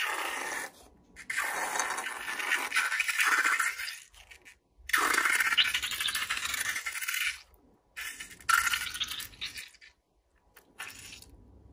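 Slime squeezed out through the neck of a latex balloon onto a plate: hissing, crackling spurts of slime and air in about four bursts of one to three seconds, with short pauses between. The spurts thin out near the end.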